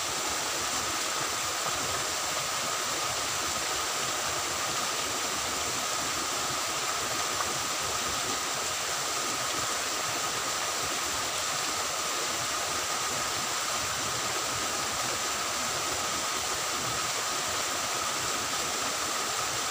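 Water flowing in a small drainage ditch: a steady, even rushing, with a faint steady high tone above it.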